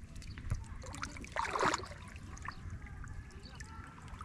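Water splashing and trickling, with one louder splash about one and a half seconds in.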